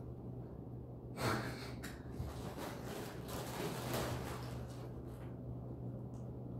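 A person breathing audibly close to the microphone: a short, sharp breath about a second in and a longer breath out from about three to five seconds, over a steady low hum.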